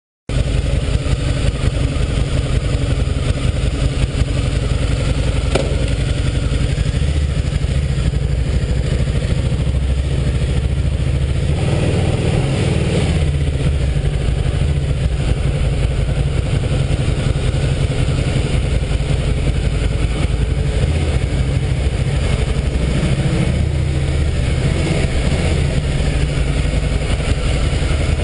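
Harley-Davidson Night Rod's liquid-cooled V-twin running as the motorcycle is ridden, a steady engine note with a brief rise in revs about halfway through.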